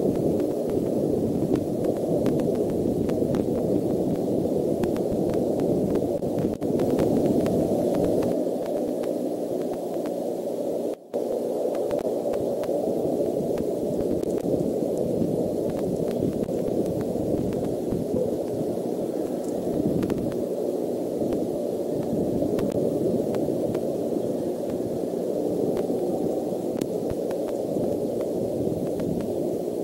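Steady static-like hiss from an outdoor eagle-cam microphone, mostly low-to-middle in pitch and even in level, with no calls heard. It cuts out for a moment about eleven seconds in.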